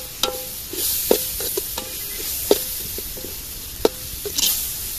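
A steel ladle stirring onion-tomato masala in a metal pot, knocking against the pot about five times, each knock leaving a short metallic ring, over a steady sizzle of the masala frying in oil.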